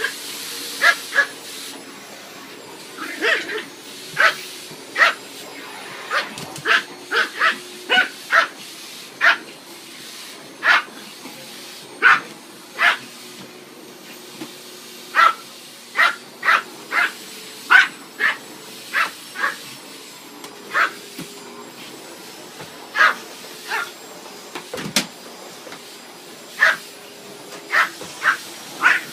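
Pomeranian barking again and again in short, sharp yaps at irregular intervals, over the steady running drone of a vacuum cleaner.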